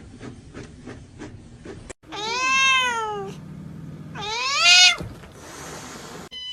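A cat meowing twice, two long meows about a second apart, each rising then falling in pitch, the second louder. Before them comes a faint regular ticking, about four ticks a second.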